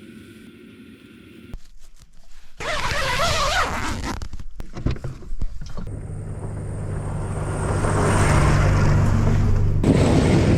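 A vehicle engine running while driving, heard in several short cut clips. From about the middle on, the loudest part is a steady low engine drone with road and wind rush, which changes abruptly near the end.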